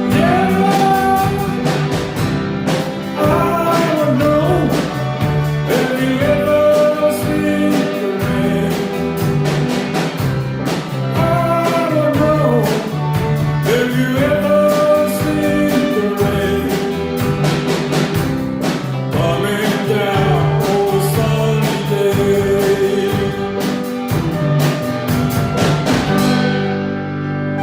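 A live band playing a rock song with a singer and a steady beat of sharp hits. Near the end the strikes stop and held notes remain as the song winds down.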